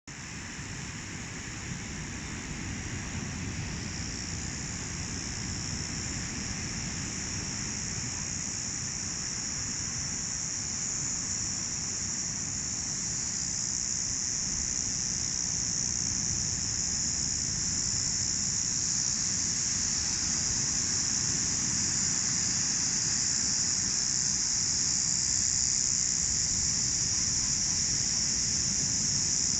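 A steady, high-pitched insect chorus that slowly grows louder, over a low outdoor rumble.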